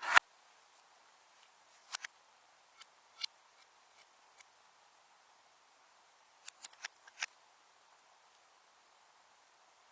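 Scattered sharp clicks and small pops from slime being squished and worked by hand. The loudest comes right at the start and a quick run of five comes a little past the middle.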